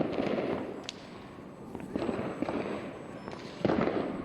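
New Year fireworks exploding: several sudden bangs, each followed by a spell of crackling, the loudest at the very start and about three and a half seconds in.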